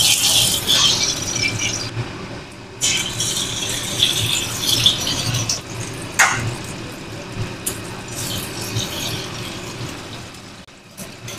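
Hot oil sizzling and crackling in a wok as eggs fry, easing off toward the end, with one sharp knock about six seconds in.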